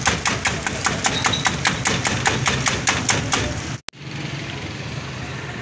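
Eggs being beaten by hand in a steel bowl, the utensil clicking against the metal in a steady rhythm of about five strokes a second. Just under four seconds in it cuts off abruptly to a steady background hum of a busy street.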